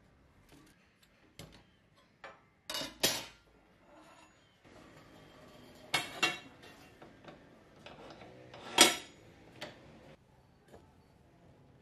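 Metal clanks and knocks as a black square steel tube is handled and set into the steel vise of a band saw: a few sharp clanks, the loudest near the end, with quieter scrapes and taps between.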